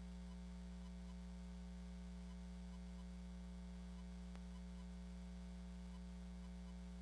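Steady electrical mains hum with a faint hiss. A faint tick comes about four seconds in.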